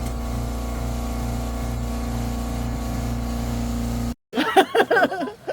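Steady engine drone of a motor vehicle, even and unchanging, that cuts off abruptly about four seconds in; people talking and laughing follow.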